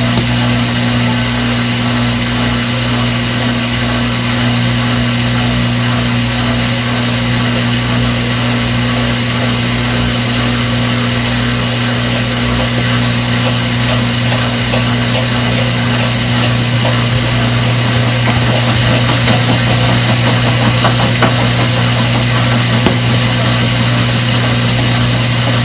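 Front-load washing machine running with a steady low hum and a noisy whirr, a few light ticks about three quarters of the way through.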